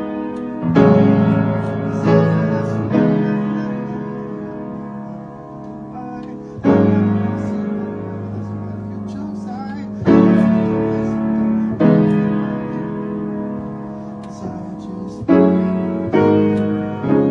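Slow piano music: full chords struck and left to ring and fade, a new chord every one to three seconds.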